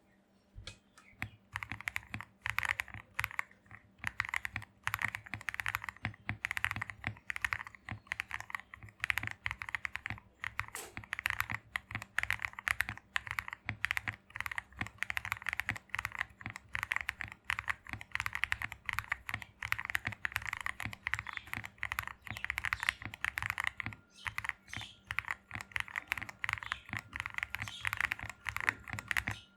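Continuous fast typing on a CIY Gas67 custom mechanical keyboard with lubed Akko Jelly Black and Gateron Cap v2 linear switches and XDA keycaps, the modded build (tape mod, case foam, PE sheet under the PCB) giving a dense run of short keystroke clacks.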